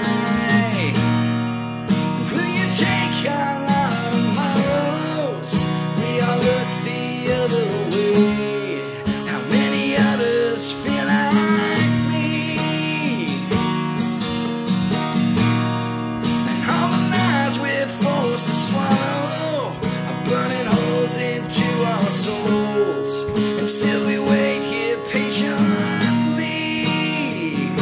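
A man singing, accompanying himself on acoustic guitar; his voice holds long notes that slide in pitch.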